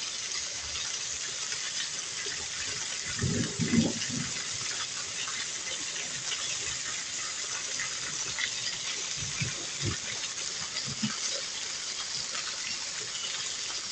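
Heavy rain pouring, with water streaming off a roof edge and splashing onto the ground, a steady hiss. A few short low thuds cut through it, the loudest about three seconds in and a couple more near ten seconds.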